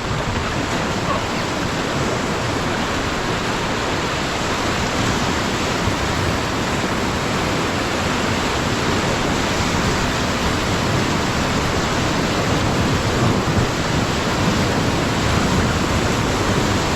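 Whitewater of the Beas River rushing around a raft: a loud, steady roar of churning water.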